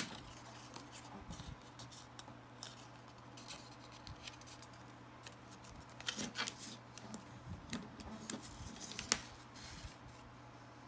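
White cardstock being folded and creased by hand on a hard tabletop: faint, scattered paper rustles and scrapes. A short cluster of them comes about six seconds in, and a sharp tap near nine seconds.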